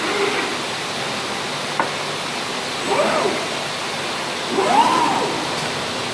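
Steady rushing hiss of machinery, with a sharp click about two seconds in and two brief tones that rise and fall in pitch around three and five seconds.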